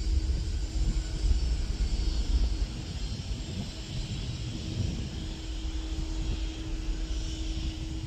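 Jin Air Boeing 737-800's twin jet engines at takeoff thrust as it rolls, rotates and climbs away, heard as a rumble with a steady hum and hiss. It eases slightly after the first couple of seconds.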